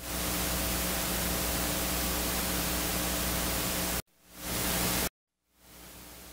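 Steady electronic hiss with a faint low mains hum, the noise floor of the recording, with no other sound. It is loud for about four seconds, cuts out suddenly, swells back for about a second, drops to dead silence, then fades back in softer.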